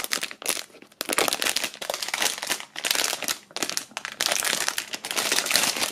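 Clear plastic bag crinkling as hands pull it off a mouthguard's plastic case, in irregular spurts with short pauses.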